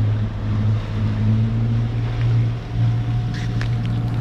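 Sailboat's engine running with a steady low drone, under the rush of wind and water.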